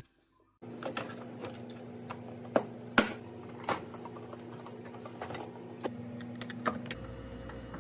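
Automatic bean-to-cup coffee machine running with a steady electric hum, punctuated by irregular mechanical clicks and knocks; the hum starts under a second in and changes near the end.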